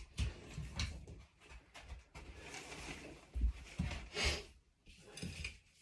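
Scattered knocks, a rustle and a sharp clatter a little past the middle, the sound of things being handled in a small room.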